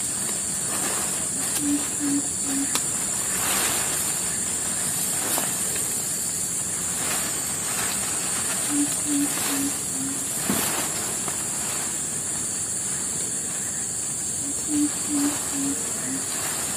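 A steady high-pitched drone of insects from the wet vegetation. A bird's low hooting call sounds in three short runs of four or five notes each. There are a few faint rustles as the raincoat and net are handled.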